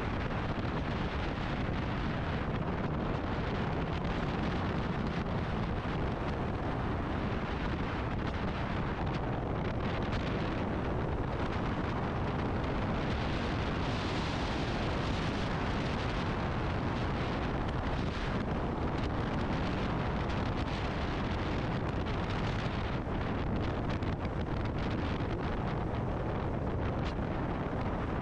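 Steady wind rush on the microphone of a motorcycle at road speed, with the bike's engine and road noise blended underneath.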